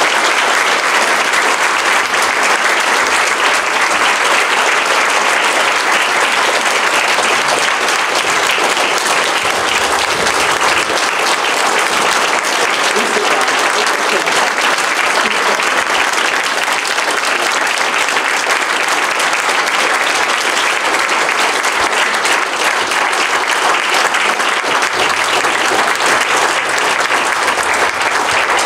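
A lecture-hall audience applauding: long, steady clapping from a standing crowd.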